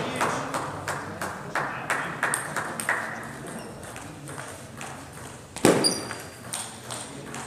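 Table tennis rally: the ball clicking sharply off the bats and table, several ticks a second at first, then a short pause and a louder hard hit past the middle.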